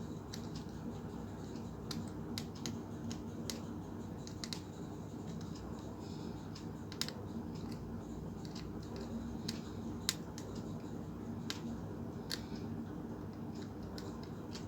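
Small screwdriver clicking and scraping against the tiny screws of a mini speaker's housing in scattered light ticks, the tip failing to grip because it is too thick for the screws. A steady low hum sits underneath.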